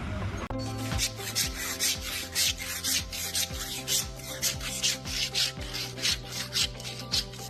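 Repeated rasping, scraping strokes, about two or three a second, over steady background music.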